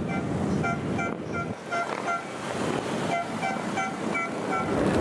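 Short, repeated horn beeps from motorcycles in a passing parade, several toots a second with brief pauses, over the steady noise of many engines.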